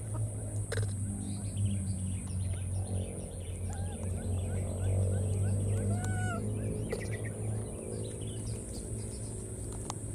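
Outdoor ambience of small birds chirping in quick repeated notes, over a steady high-pitched drone and a steady low hum.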